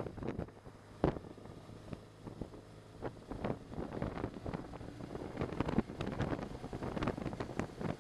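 Wind buffeting a motorcycle rider's camera microphone in irregular gusts, over the faint steady hum of the motorcycle's engine.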